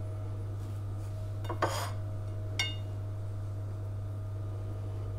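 Kitchen handling sounds at a metal baking tray while grated cheese is sprinkled on: a brief rustling scrape about one and a half seconds in, then a single light clink about a second later, over a steady low hum.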